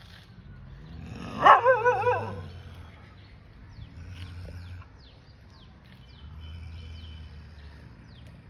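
A street dog gives one loud call with a wavering, whining pitch, lasting under a second, about one and a half seconds in. Faint short bird chirps follow now and then.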